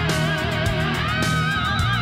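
Recorded rock-pop music with electric guitar, with held notes that waver in pitch over a steady low bass line.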